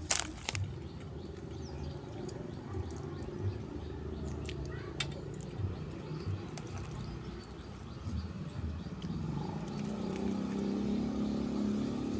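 A motor running steadily, its hum growing louder over the last couple of seconds, with a sharp click at the start.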